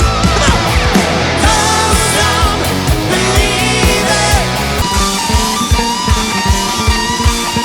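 Rock music from a band: a lead electric guitar playing long, bending notes over bass and a steady drum beat.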